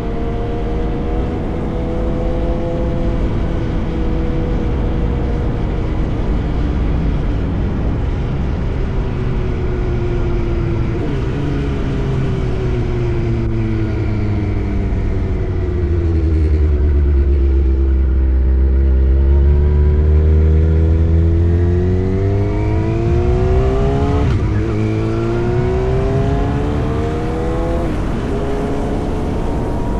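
Yamaha R1 inline-four engine running through an SC-Project exhaust on the move. The note holds steady, sinks low as the bike slows about halfway through, then climbs again through the revs with a short drop between two rises near the end, as with gear changes.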